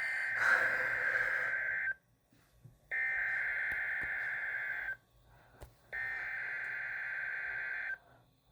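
NOAA Weather Radio SAME digital header for a Required Weekly Test, heard through weather radio speakers. It comes as three raspy data bursts of about two seconds each, a second apart, which signal the start of the weekly test.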